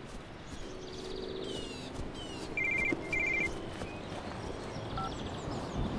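Mobile phone ringing: two short trills of rapid electronic beeps, about half a second apart.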